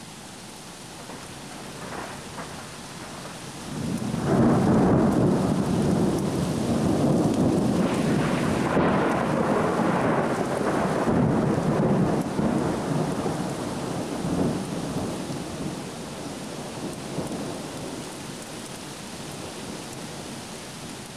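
Thunder rumbling over steady rain: a loud roll starts about four seconds in, holds for several seconds, then slowly fades, with the hiss of rain underneath.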